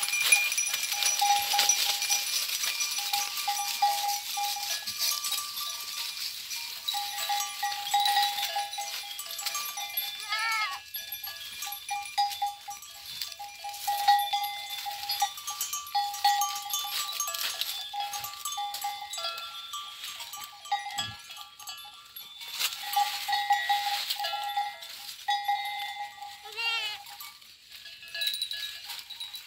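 Goats browsing on leafy branches: leaves and twigs rustling and crackling as they are pulled and chewed. Over it a clear ringing tone comes and goes in short spells, with a couple of short up-and-down chirps.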